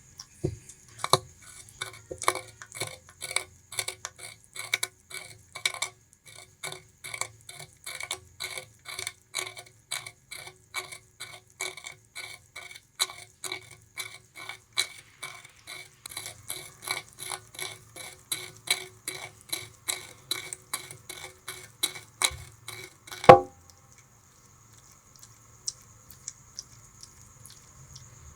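Bamboo rat chewing sugarcane: fast, regular crunching bites, about three a second, ending in one loud snap after which the chewing stops.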